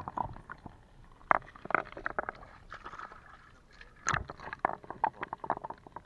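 Shallow rock-pool water sloshing and splashing close to the microphone, with irregular small splashes and drips and a sharper splash about four seconds in.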